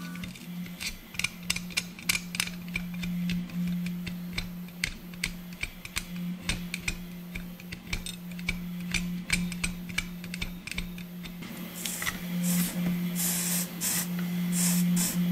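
Soft background music over a steady low hum, with scattered light clicks. Near the end come several short hissing sizzles as the hot tip of the SQ-001 soldering iron is wiped on the wet cleaning sponge.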